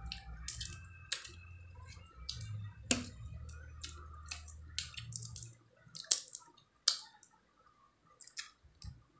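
Irregular sharp clicks and cracks of mud crab shell being broken and picked apart while eating. A low hum underneath stops a little past halfway.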